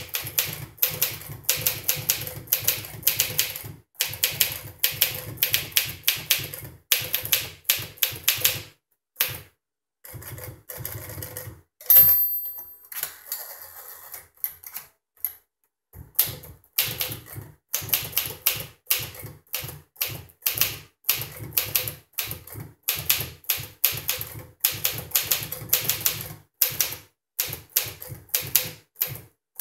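1957 Smith Corona Silent Super manual typewriter being typed on in quick runs of key strikes. Near the middle the typing stops, a single bell ding rings out with some quieter carriage handling, and then the typing resumes.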